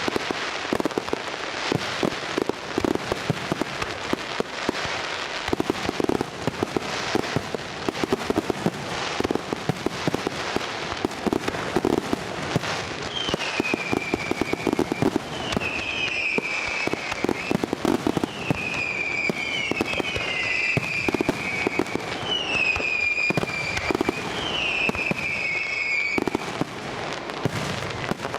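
Fireworks display: dense, rapid pops and crackles with thuds of bursting shells, steady throughout. From about halfway in, a run of about seven short falling whistles sounds over the crackle.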